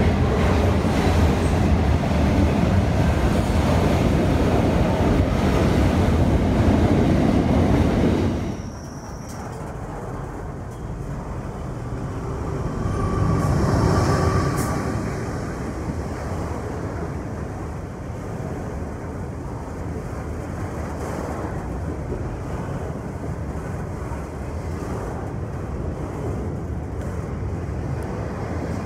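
Train passing with a loud, steady rumble of wheels and wagons. It drops off abruptly about eight seconds in to a quieter rumble, which swells again briefly a few seconds later with a faint high tone.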